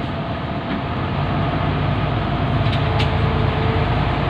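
A bus's diesel engine running with a steady low rumble that swells slightly through the middle. Two short clicks come about three seconds in.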